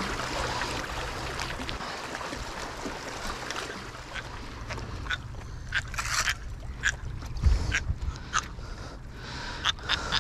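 Seawater sloshing and lapping against shoreline rocks, then a run of short, sharp clicks and knocks from about halfway through as the catch is brought up and handled among the rocks.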